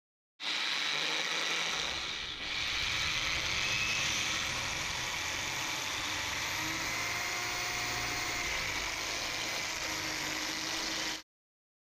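Electric drill running a step drill bit, cutting holes through the metal end plate of a Yamaha XJR1300 muffler. The drill runs steadily with a brief dip about two seconds in, starting and stopping abruptly.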